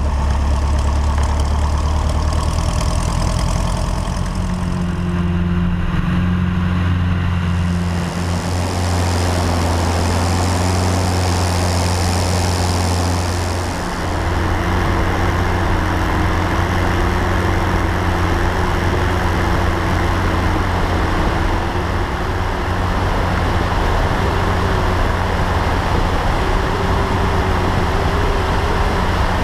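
Light single-engine aircraft's piston engine and propeller running steadily at high power, heard close from a camera on the airplane, with rushing wind noise that builds after about eight seconds. The sound dips briefly and shifts about halfway through.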